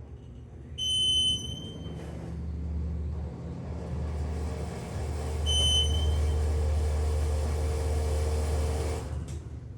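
Elevator car descending: a low rumble starts about a second in, grows louder just past the middle and cuts off shortly before the end as the car stops. A high electronic beep sounds twice, about a second in and again just past the middle.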